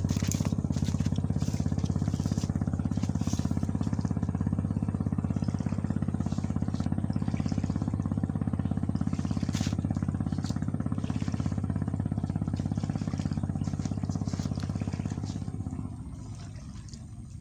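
Small engine running steadily with a fast, even pulse, then dropping off sharply near the end.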